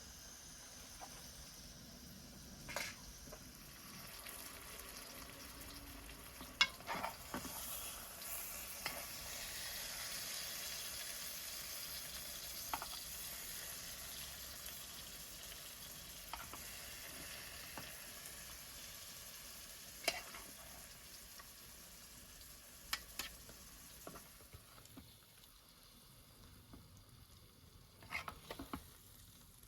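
An omelette frying and sizzling in a pan, with short sharp taps and clicks of a utensil against the pan scattered through it. The sizzle swells and then gradually fades.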